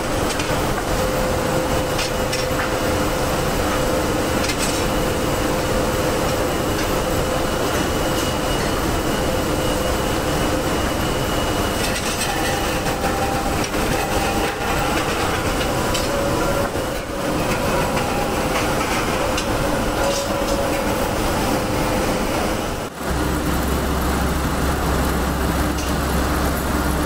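Steady industrial clatter and hum of a steel re-rolling mill working a red-hot bar from the reheating furnace onto its roller conveyor, with a few steady whining tones over it. The sound changes abruptly twice, and a deeper hum is stronger over the last few seconds.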